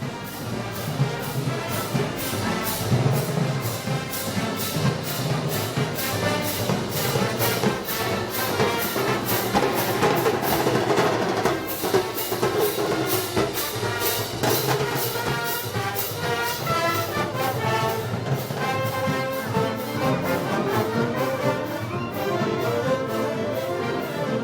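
Festival wind band music led by brass such as trumpets and trombones, with percussion keeping a steady beat.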